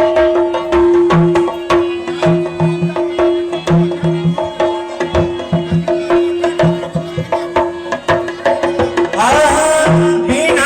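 Instrumental interlude in a devotional bhajan: hand drums play a brisk rhythm with deep bass strokes over a harmonium holding one steady note. A singing voice comes back in near the end.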